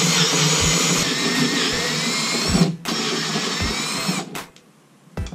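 Power drill with a small bit drilling a hole through a BMW E46 M3's trunk lid, motor whining under load. It runs, pauses briefly about two and a half seconds in, runs again, and stops near the end.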